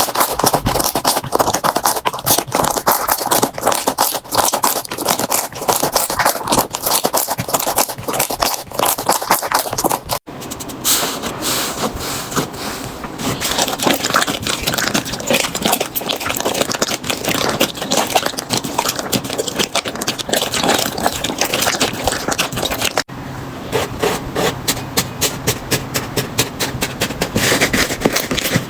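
Slime being pressed, poked and stretched by hand, making dense, rapid crackling and clicking. The texture changes sharply twice, about ten and twenty-three seconds in, as one slime gives way to the next.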